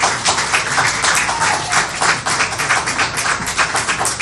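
Crowd applauding: a dense, steady patter of many hands clapping at once.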